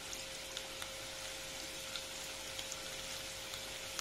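Chopped garlic sizzling in hot oil in a non-stick kadhai: a steady hiss with scattered small crackles.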